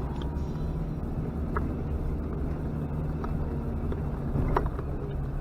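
Off-road vehicle's engine running steadily at a low pitch, with a few scattered sharp clicks and knocks over it.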